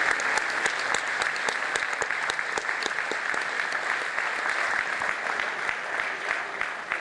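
Audience applauding, a dense patter of hand claps that slowly thins and grows quieter toward the end.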